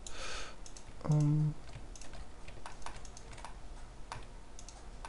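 Computer keyboard and mouse clicks: scattered light taps as hotkeys are pressed and the mouse is clicked. About a second in comes a short hummed 'mm' from a man's voice.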